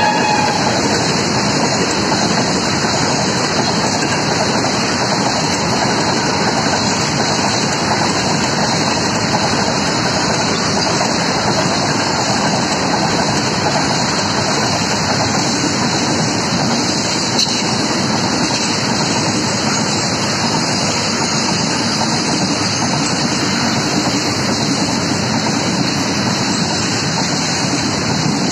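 Loaded BCN covered freight wagons of an Indian Railways freight train rolling past close by at speed: a steady, unbroken noise of wheels on rails.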